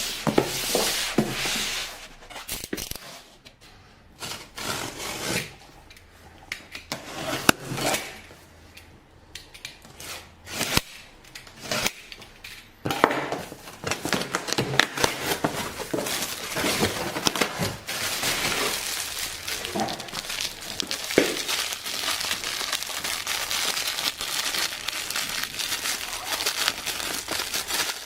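Plastic and cardboard packaging of a Lego set being handled and torn open: scattered sharp clicks and rustles at first, then dense, continuous crinkling of plastic from about halfway through.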